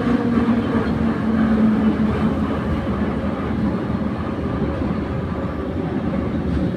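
Kyiv Metro train running, heard from inside the car: a steady rumble of wheels on rail with a low motor hum.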